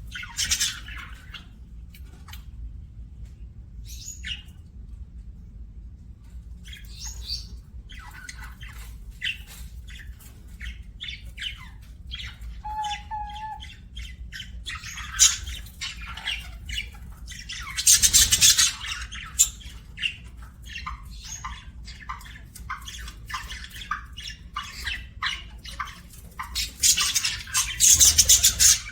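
Budgerigars chirping and chattering: a few scattered chirps at first, then a fast run of short chirps, broken by loud harsh squawks about two-thirds of the way through and again near the end.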